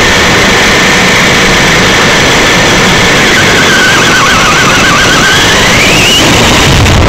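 Electric motor and gear whine of a Traxxas Summit RC monster truck, heard loud from a camera mounted on the truck, over constant road noise. The whine wavers lower for a couple of seconds midway, then rises steeply about six seconds in.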